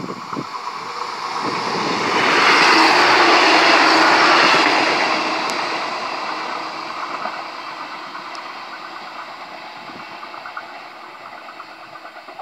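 Renfe Class 594 diesel multiple unit running past on the line. It grows louder to a peak about two to four seconds in, then fades gradually as it moves away.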